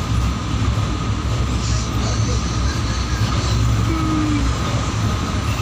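Passenger train running across a long bridge: a steady, loud low rumble of wheels and carriage with a thin steady whine above it.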